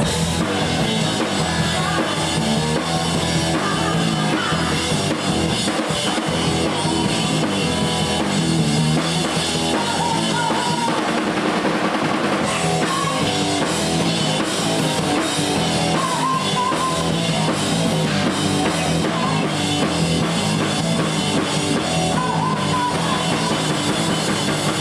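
Rock band playing, the drum kit with bass drum and snare prominent over a steady beat.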